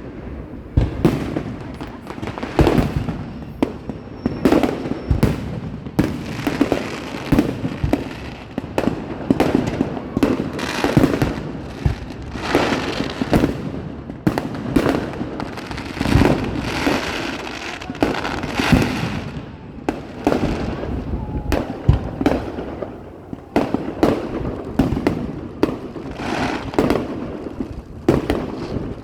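Fireworks display: a continuous run of bangs, several each second, with crackling between them.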